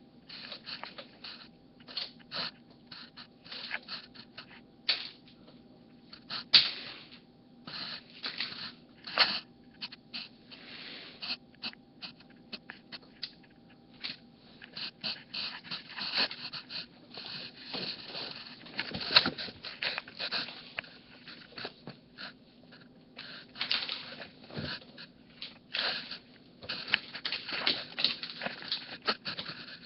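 A cat playing with a string: irregular scuffles, scratches and light taps as it bats and pounces, some sharp, over a steady low hum.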